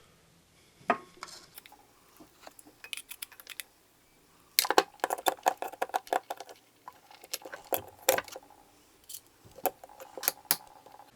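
Metal clicks and clinks from a loose screwdriver bit gripped in pliers, working on the small screws in the base of a DDC pump housing. It comes as scattered single clicks, with a quick run of ringing clinks about halfway through.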